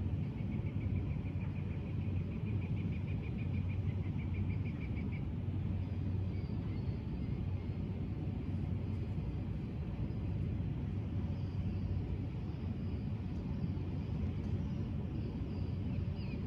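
Steady low outdoor rumble with a low hum running under it. Over the first five seconds a bird sings a fast trill of repeated high notes, and a few faint chirps follow later.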